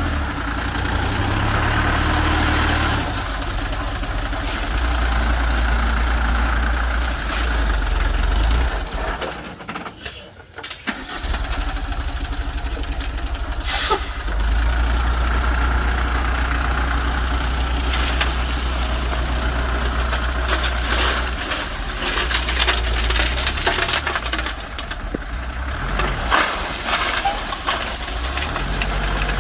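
Heavy diesel engine running with a steady low rumble. It drops away briefly about ten seconds in, and a sharp click comes a few seconds later.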